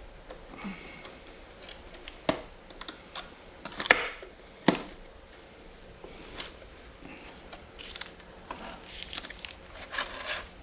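Irregular sharp metallic clicks and taps, the loudest two about four and five seconds in, as an oil ring is expanded and worked into its groove on a John Deere two-cylinder engine piston.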